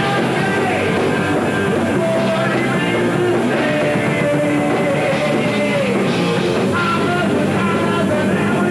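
Live metal band playing loud and full-on, with a vocalist singing into the microphone and a second voice joining near the end.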